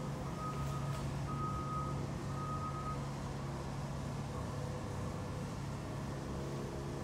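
Aggregate belt conveyor and its geared drive motors running with a steady hum. A high electronic warning beeper sounds about once a second and stops about three seconds in.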